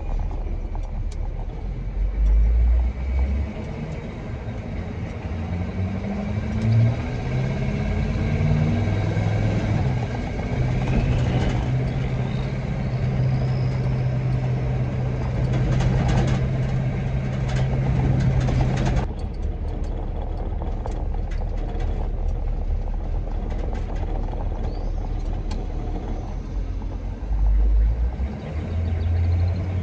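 Truck engine on the road: it climbs in pitch through the gears, holds a steady cruise, drops off sharply about two-thirds of the way through, and pulls up again near the end. A couple of low thumps come early and late.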